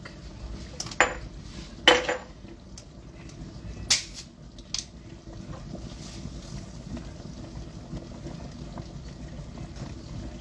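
A bottle of home-fermented kefir soda being opened over the sink: three sharp clicks and clinks of the bottle and cap, then a steady fizzing hiss as the highly carbonated soda foams out.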